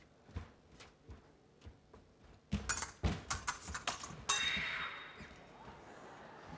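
Épée fencing: scattered steps and stamps of footwork, then about two seconds of rapid clicking blade clashes ending in a sharp final clash, followed by a brief high tone and a short fading rush of noise.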